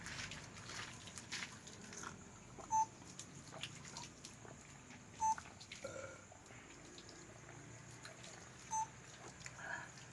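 Three short, identical electronic beeps, a few seconds apart, over faint scattered clicks and low background noise.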